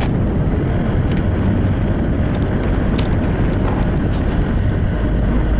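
Boat's outboard motor running steadily under way, a low rumble with wind buffeting the microphone.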